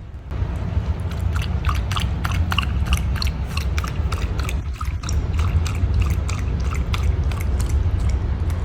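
Automatic pet water fountain running, with a steady low pump hum and many quick irregular ticks and splashes of water above it.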